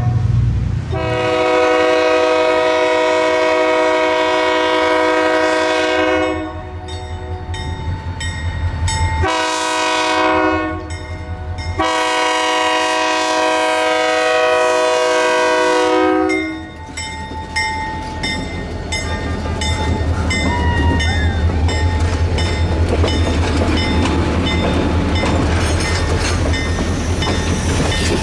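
Diesel locomotive's multi-chime air horn sounding at a grade crossing: a long blast, a short one, then another long one. Then the train rolls past, a low rumble with the steady clickety-clack of passenger-car wheels over the rail joints.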